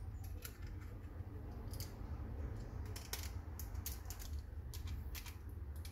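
Small sharp clicks and ticks of a precision Torx screwdriver working the tiny screws of a plastic door control module, with the plastic housing knocking in the hands, over a low steady hum.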